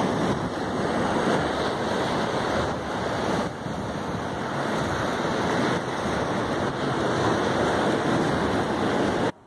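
Sea surf washing over a rocky shore, a steady rush with wind on the microphone. It cuts off suddenly just before the end.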